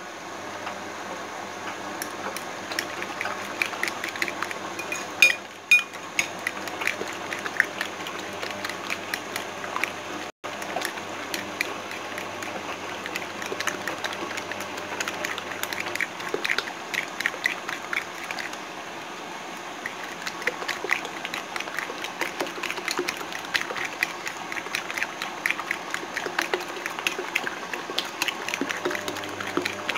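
A fork beating raw eggs with grated cheese and sliced olives in a ceramic bowl: rapid clinking of the fork against the bowl, with wet sloshing of the mixture.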